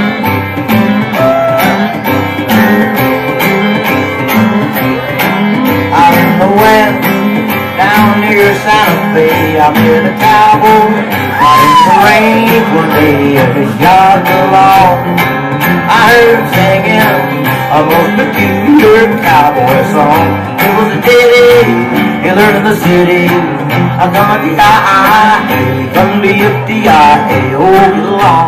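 A live country band playing an uptempo boogie: strummed acoustic guitar, upright bass and electric guitar, with a steel guitar sliding between notes.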